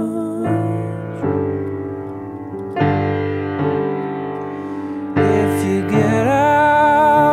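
Slow background music: sustained piano chords, a new chord struck every second or so, with a held wavering note that rises in pitch about six seconds in.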